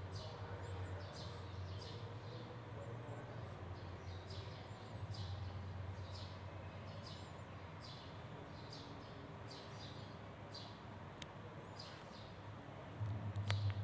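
Short high-pitched chirps repeating steadily, about two a second, over a low steady hum that gets louder near the end.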